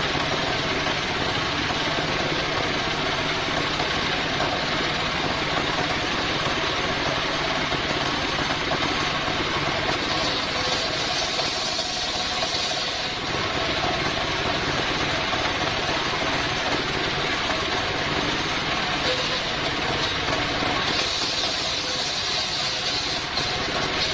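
Stationary engine running steadily, belt-driving a homemade circular saw bench. The blade's sound rises to a brighter, higher whine as it cuts through coconut-palm timber, once about ten seconds in and again near the end.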